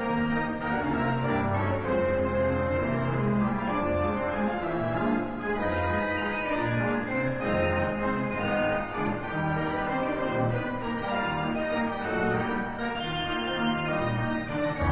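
Instrumental background music with held, sustained chords.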